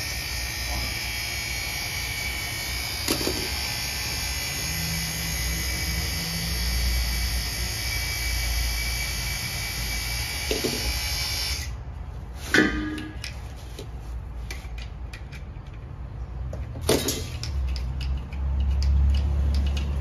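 Refrigerant gas hissing through a gauge manifold into a fridge's sealed system while it is being charged, with faint whistle tones over a low hum. The hiss cuts off sharply a little past halfway. After that come a few clicks and knocks from the fittings, and the low hum grows louder near the end.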